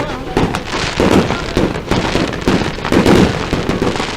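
Fireworks display: a dense, continuous barrage of shell bursts, several loud bangs a second, with crackling between them.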